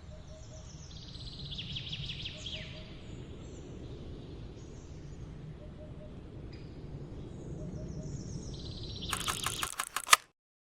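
Birds chirping and trilling over a steady outdoor background hum. Near the end a rapid run of clicks starts, peaks in one loud click, and the sound cuts off abruptly.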